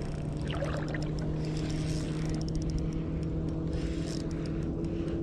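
A steady low motor drone with one higher overtone, over a wash of water and outdoor noise, with a few light clicks about halfway through.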